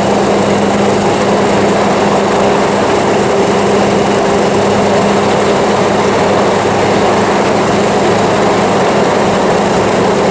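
1938 Austin 10 Cambridge's four-cylinder side-valve engine running steadily as the car cruises, an even engine note under heavy wind and road noise.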